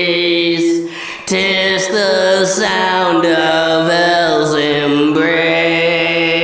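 Dark ambient music: a sustained chant-like vocal drone over held tones, with a brief dip about a second in before it swells back.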